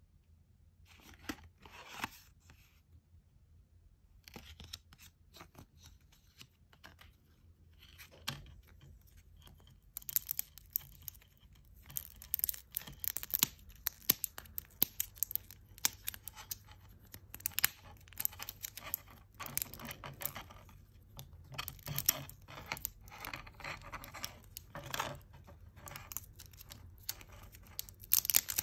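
Clear plastic film being peeled and torn off a small plastic toy Poké Ball by hand, crinkling and crackling. Only scattered crackles at first, then steady, dense crinkling from about a third of the way in.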